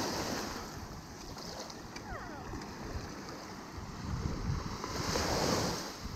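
Small waves washing up on the sand at the shoreline, with wind buffeting the microphone; a wash swells up about five seconds in.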